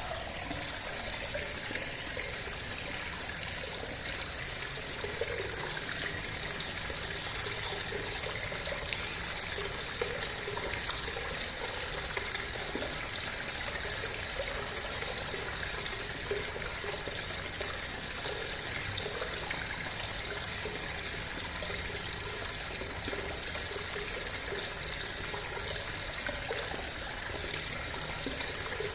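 Clear river water flowing steadily, with a continuous trickling, bubbling rush.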